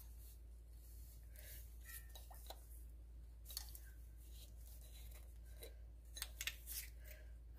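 Quiet kitchen room tone with a low steady hum and scattered faint clicks and light taps of bottles and dishes being handled, a few slightly louder ones near the end.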